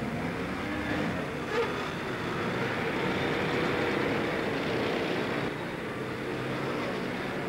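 Vehicle engines and road traffic running steadily, with one brief sharp sound about one and a half seconds in.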